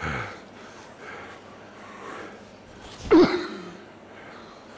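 A man's short, loud effort grunt, falling in pitch, about three seconds in, as a kettlebell is heaved up over a high bar.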